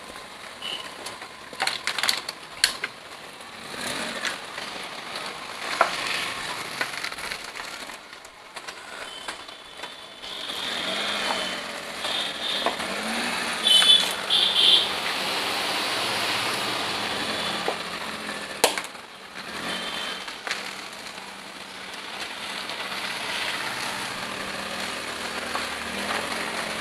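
A Maruti 800 moving off on a test drive: steady road and traffic noise with a faint low engine note rising and falling, scattered knocks and clicks, and a few short high tones in the middle.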